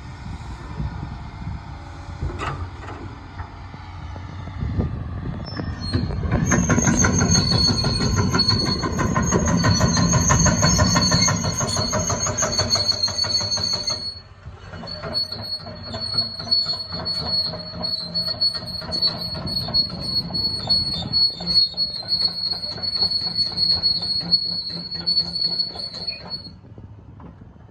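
Liebherr R946 crawler excavator travelling on its steel tracks: a steady high-pitched squeal with rapid clanking of the track links over the diesel engine's rumble. The squeal and clanking stop briefly about halfway through, then resume until shortly before the end.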